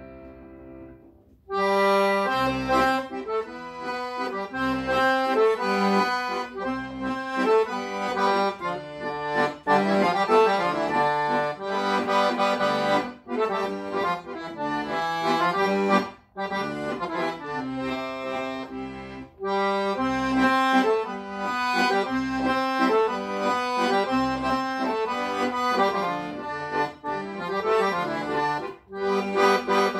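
Galanti piano accordion playing a melody on the right-hand keys over a steady bass accompaniment. A held chord dies away at the start, there is a short break about a second and a half in, and then the playing resumes and continues.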